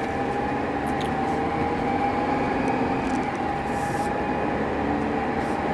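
Range Rover Evoque D180's four-cylinder diesel engine and road noise heard from inside the cabin while driving, steady, with a constant high-pitched tone over the rumble. The occupants find the sound grating and suspect it is not the normal diesel sound.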